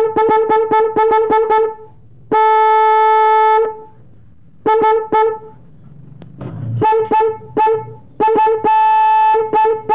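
Single-tone 12 V snail-type electric horn for a motorcycle, sounded in runs of quick toots about five a second, broken by two long steady blasts, the first about two seconds in and the second near the end.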